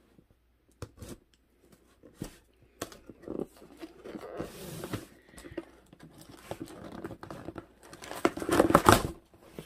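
Cardboard box flap being prised and torn open: scattered clicks and scraping, building to a loud rip of cardboard about eight seconds in.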